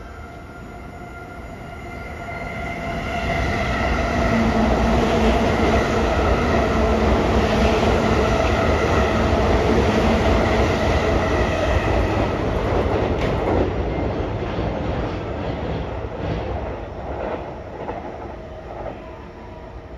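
E231-series electric commuter train running past, growing louder over the first few seconds, loudest for about eight seconds with steady tones over the rumble, then fading away.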